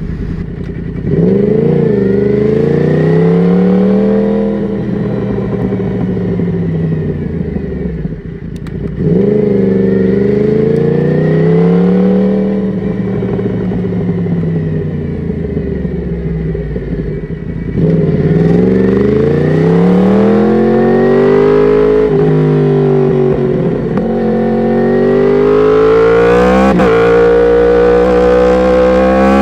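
Yamaha R1's inline-four engine through an Akrapovic exhaust, on the move. The revs climb and drop several times as the bike pulls and eases off, and it runs louder from about halfway on.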